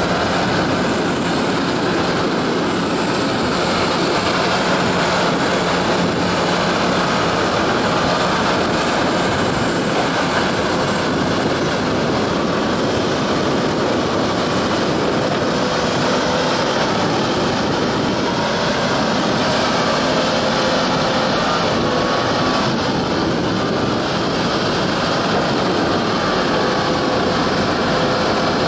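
Steady drone of a dredging barge's excavator diesel engine running while it works its arm, with no sudden knocks or changes.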